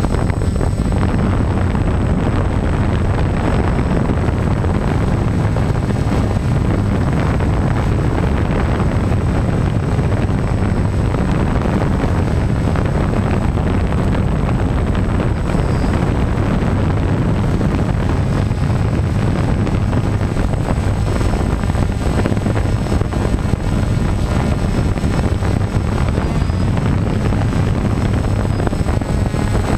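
DJI Phantom quadcopter's four motors and propellers running steadily in flight, heard through the GoPro mounted on the drone itself, with a faint steady high whine and wind buffeting the microphone.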